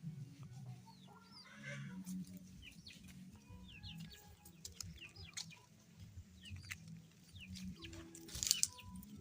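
Faint farmyard fowl: scattered clucks and short, high chirps, with a louder rustling burst about eight and a half seconds in.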